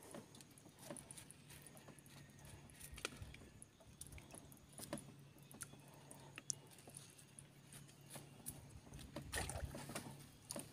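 Faint scattered clicks and rustles of hands working on tree branches from a small boat, over a faint steady low hum.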